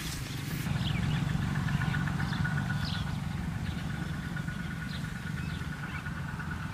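Open-field outdoor ambience: a steady low rumble under a continuous, evenly pulsing high chirr, with a few short bird chirps.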